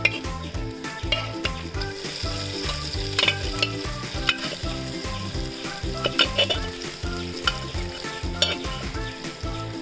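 Cooked pork and its gravy sizzling as they land in a hot pan of fried onion masala, with a flat metal spatula scraping and clicking against the steel pot it is tipped from.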